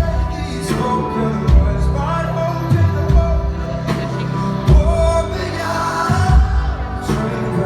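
Live band music from a pop ballad performance: sustained melody over heavy drum hits about once a second.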